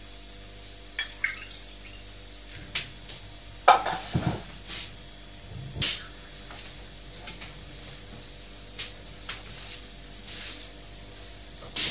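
Scattered light clicks and knocks in a small room, with a louder clatter and thud about four seconds in.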